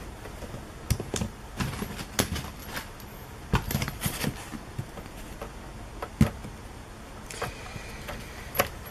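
Irregular clicks and taps of BNC video cable connectors being pushed onto and twisted onto the sockets of a mobile DVR, with cables knocking against the unit; the sharpest knock comes about six seconds in.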